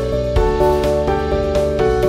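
Background music: an instrumental tune of steady notes stepping from pitch to pitch over a regular beat.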